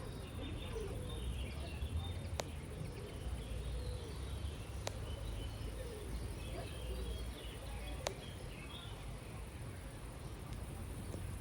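Faint birds chirping over a steady low rumble of wind, with a sharp click every two or three seconds.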